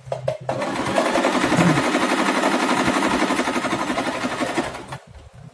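Singer 3232 portable electric sewing machine running a seam, its needle mechanism clattering in a fast, even rhythm. It starts about half a second in, runs steadily, and winds down and stops near the end.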